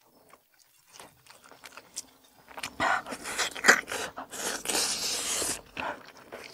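A person biting and chewing chunks of braised oxtail meat off the bone, with close-up crunching and mouth noises that are loudest in the middle.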